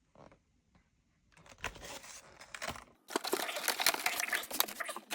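Plastic packaging crinkling and crackling as it is handled, starting after about a second and a half of quiet and getting louder and denser about three seconds in.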